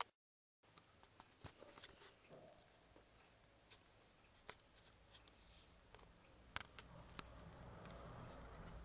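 Near silence with faint, scattered small clicks and light scratching, as of a baby rat's claws on a plastic cage toy.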